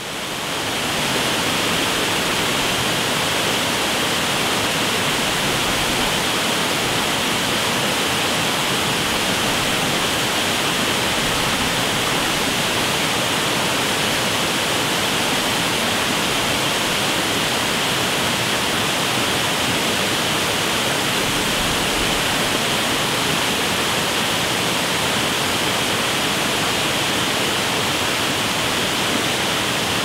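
Waterfall pouring over a rock face and splashing down the rocky cascade below: a steady rushing of water that swells up over the first second and then holds even.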